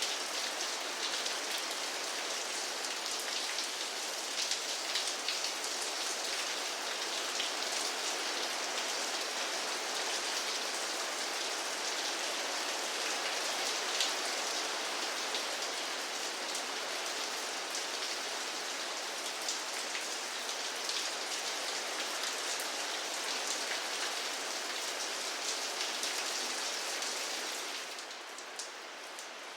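Steady rain falling, with individual drops ticking through the hiss. It eases a little and grows softer near the end.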